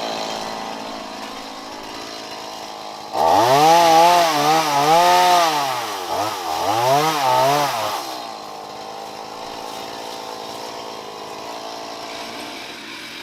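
Gas chainsaw idling, then revved hard in four or five rising-and-falling swells for about five seconds starting about three seconds in, before dropping back to idle.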